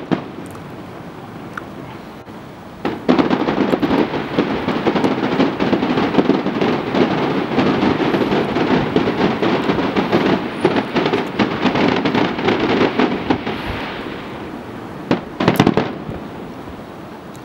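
Aerial fireworks: a bang at the start, then about three seconds in a dense barrage of rapid bangs and crackles that runs for about eleven seconds and fades, and a couple of loud bangs near the end.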